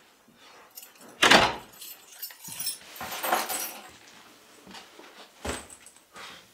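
A front door shuts with a loud thud about a second in, followed by keys jangling and a few smaller knocks and rattles, with another sharp knock near the end.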